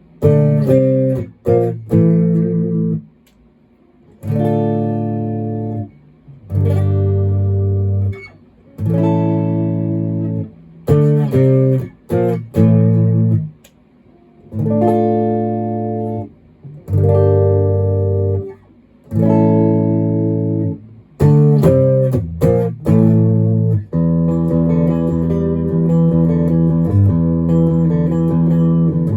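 Maverick Chaos 2 HT electric guitar played through a Brown Creature distortion pedal: chords struck and held for a second or two, then cut off short, with brief silences between them. Over the last five seconds the playing runs on without breaks.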